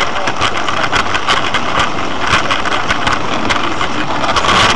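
Heavy storm rain pelting a car's windshield and roof, heard from inside the car as a loud, dense crackle of hits.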